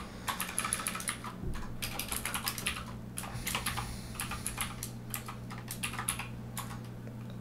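Computer keyboard being typed on in irregular runs of key clicks, with short pauses between runs, over a steady low hum.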